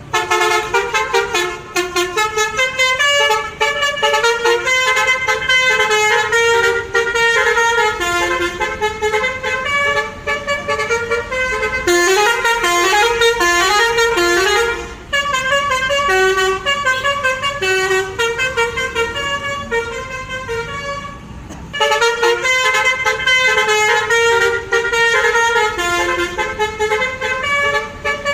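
A truck's telolet horn, a Basuri-type multi-tone horn, playing a fast tune of short, shifting notes almost without pause. There are brief lulls about halfway through and again around three quarters of the way through.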